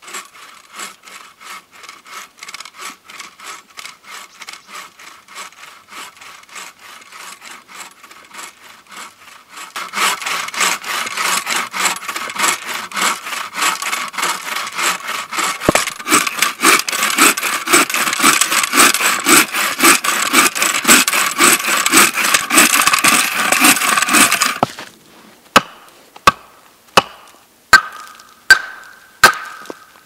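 Hand saw cutting through a log in steady back-and-forth strokes, fainter at first and louder from about a third of the way in. The sawing stops, and a hatchet strikes wood about six times, one sharp chop every second or less.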